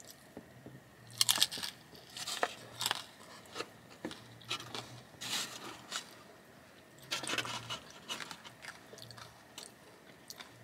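Close-up crunching and chewing of a crisp taco, in irregular bites and crunches every second or two.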